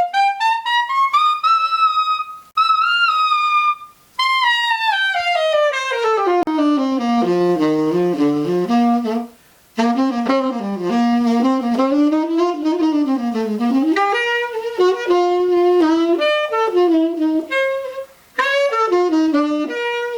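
Tenor saxophone, a Buescher Aristocrat with a hard-rubber Brilhart mouthpiece, played solo in jazz phrases: a climb into the high register, a long run down to the low notes, then winding lines, with short breaths between phrases. The reed is an old, used Vandoren that the player finds dead but that speaks really nicely up in the high register.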